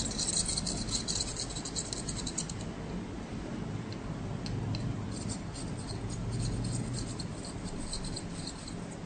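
Crackling sizzle of hot flux and solder as a soldering iron tip works along the leads of a surface-mount chip. The crackle comes in two spells: one runs for the first two and a half seconds, and the other starts about five seconds in and stops near the end. A low steady hum runs underneath.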